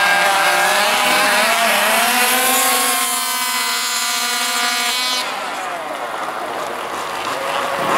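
Radio-controlled off-road cars' motors running at speed, a whining pitch that swings up and down as they accelerate and ease off. It holds steady for a couple of seconds near the middle, then drops away and grows fainter as the cars pull away.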